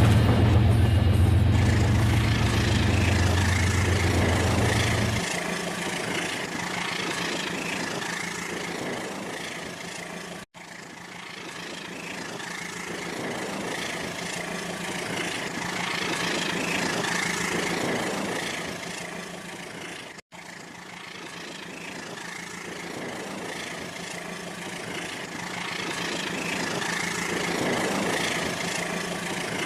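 Rail King toy train running on its track: a steady motor whir with a strong low hum for the first few seconds, swelling and fading in loudness as it comes and goes. The sound cuts out briefly twice.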